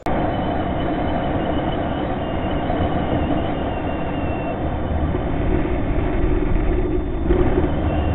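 Motorcycle riding along a road, heard on the rider's camera: steady rushing wind and road noise over a low engine rumble, starting abruptly.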